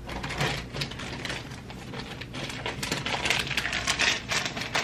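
Small items being handled and rummaged through: a dense, irregular run of clicks, rattles and rustles.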